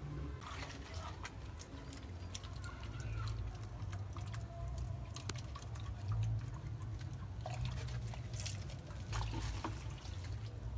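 Water pouring and dripping in short splashes, as in a water change of betta fish containers, with many light clicks and knocks over a steady low hum.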